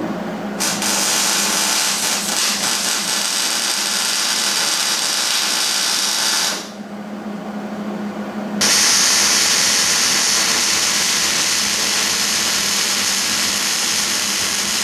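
Hobart Handler 140 MIG welder running a bead with solid wire under shielding gas: a steady arc noise in two runs of about six seconds each, with a short break of about two seconds between. A low steady hum continues underneath throughout.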